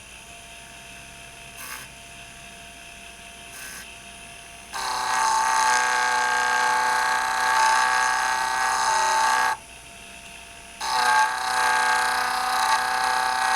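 JOOLTOOL polishing machine spinning a 5-micron 3M Trizact abrasive disc at medium-high speed with water, a faint steady motor hum at first. About five seconds in a glass jewelry piece is held against the disc and a much louder whining, sanding sound sets in for about five seconds, drops back to the hum, then starts again near the end.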